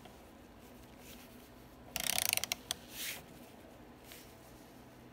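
Ratchet head of a digital torque wrench clicking rapidly for about half a second, then once more, as it is swung back while the bolts of a steering coupler are tightened.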